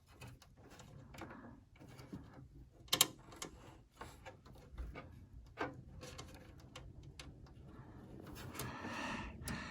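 Faint clicks and scrapes of small parts being handled inside a computer case as an M.2 SSD mount is undone, with a sharper click about three seconds in and a longer stretch of scraping near the end.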